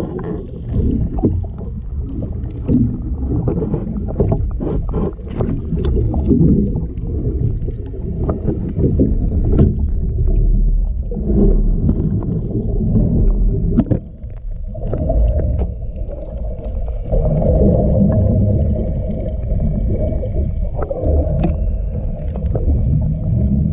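Fishing boat under way: low rumbling drone of the boat's motor and water, with frequent knocks and slaps against the hull, the drone growing steadier about two-thirds of the way through.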